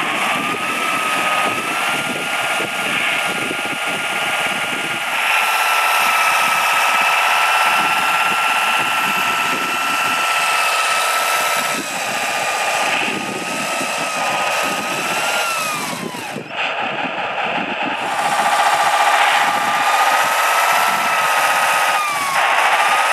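The electric drive motor and gears of a radio-controlled scale model Tatra 130 truck whine steadily as it churns through loose sand, over a gritty grinding of sand under the tyres. The whine dips in pitch several times as the model slows, falling sharply about two-thirds of the way through.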